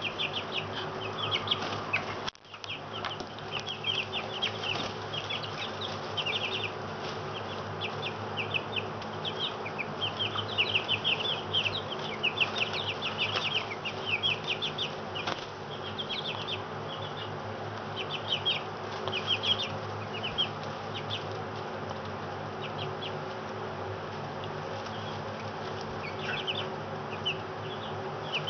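A flock of Black Australorp chicks about four weeks old, peeping continually: many short, high, falling cheeps that crowd together for the first twenty seconds and thin out after. A steady low hum runs underneath, and the sound drops out briefly about two seconds in.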